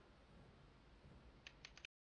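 Near silence with a faint low hum, then four quick, sharp clicks about a second and a half in, after which the sound cuts off abruptly.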